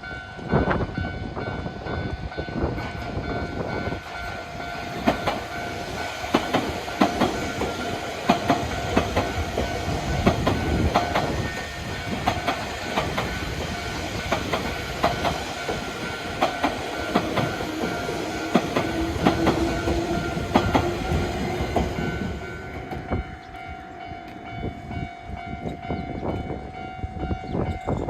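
Train running over a level crossing, its wheels clacking over the rail joints, while the crossing's warning bell rings steadily. About 23 seconds in, the train noise falls away and the bell keeps ringing.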